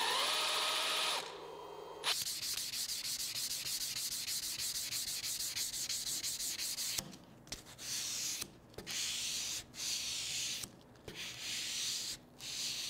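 Hand sanding wood with a folded piece of sandpaper: fast back-and-forth rasping strokes, unbroken at first, then in separate bouts with short pauses in the second half. Before that, for about the first second, a cordless drill whines as it bores into a wooden block and then stops.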